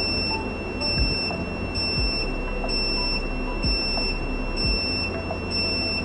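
High-pitched fault alarm beeping from the voice alarm controller, pulsing about once a second. It is triggered by the real-time line detection after the EN54 speaker line is disconnected.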